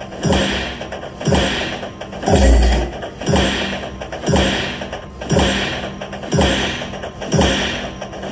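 Dragon Train slot machine's win celebration sound: a loud, rhythmic chugging beat about once a second, with a heavy low boom about two and a half seconds in, as the win total counts up.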